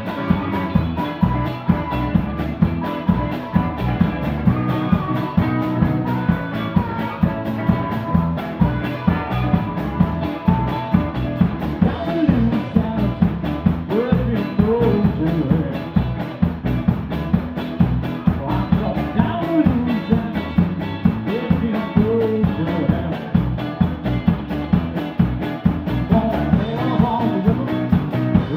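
Live rock band playing a twelve-bar blues: electric guitars over a drum kit keeping a steady beat, with bending melodic lines in the middle of the passage.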